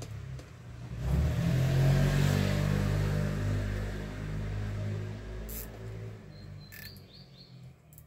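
A motor vehicle's engine passing by, swelling about a second in and slowly fading away over the next several seconds. A few bird chirps come near the end.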